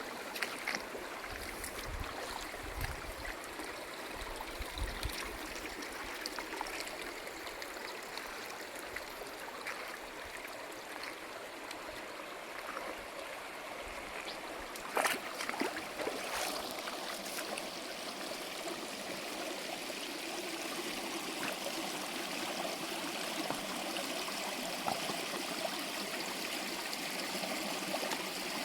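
Stream water running steadily, with one sharp knock about fifteen seconds in and a few fainter ones after it.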